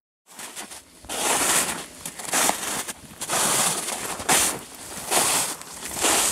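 Footsteps crunching through snow, about one step a second, each step a short rustling crunch.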